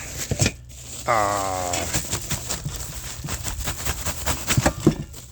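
Parts and packaging of a cold air intake kit being handled: a run of clicks, knocks and crinkling as pieces come out of the box. About a second in there is a brief pitched sound, sliding slightly down, lasting under a second.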